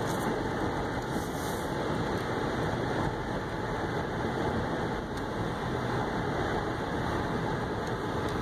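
Inside an Acura rolling slowly down a gravel road: a steady rumble of tyres on loose gravel, with the engine running low underneath.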